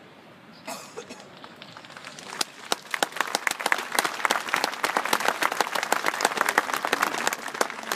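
An audience applauding. The clapping starts a couple of seconds in, swells to a full round of applause, and begins to thin out near the end.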